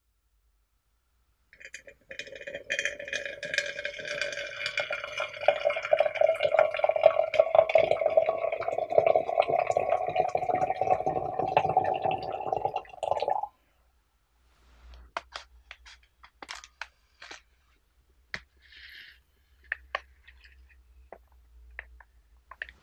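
Water pouring steadily into a vessel for about twelve seconds, its pitch slowly rising as the vessel fills, then stopping abruptly. After it, scattered light clicks and rustles of a foil tea packet being handled and loose green tea leaves being tipped onto a dish.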